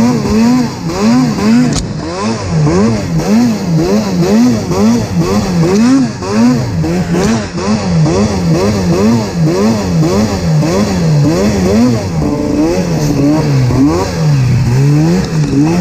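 Snowmobile engine with an MBRP aftermarket exhaust, revving up and falling back over and over, roughly twice a second, as the throttle is worked on and off while riding through trees.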